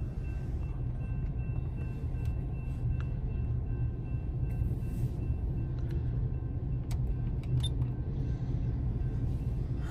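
Freight train cars rolling past a grade crossing, heard from inside a car's cabin: a steady low rumble of wheels on the rails that holds level throughout.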